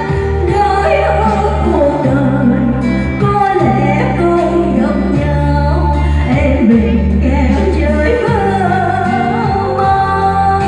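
Slow ballad music with long held bass notes and a wavering melody line above them.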